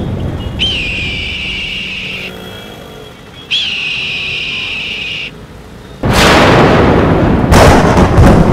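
Film-promo sound effects: two long, high whistle-like tones, each starting with a quick dip in pitch, then a sudden loud explosion-like boom about six seconds in, with sharp cracks through it.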